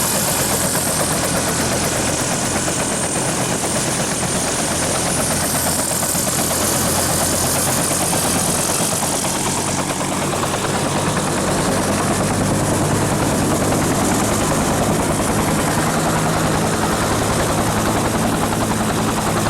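Helicopter running with its rotor blades beating steadily; the low rumble of the rotor and engine grows stronger about halfway through.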